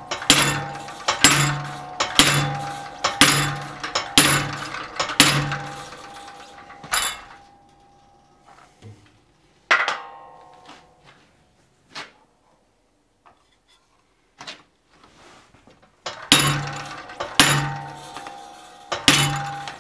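Treadle hammer striking a hafted top fuller on a hot steel punch blank in a bottom swedge, about one ringing blow a second, as a curve is swedged into a teardrop punch. The blows stop for several seconds, with only a few light metal clinks, and start again about sixteen seconds in.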